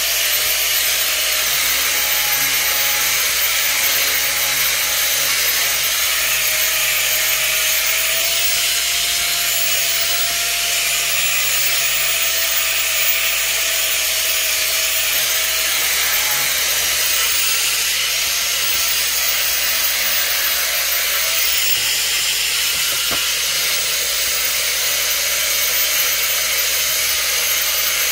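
Steady, loud hiss with a faint low hum beneath it.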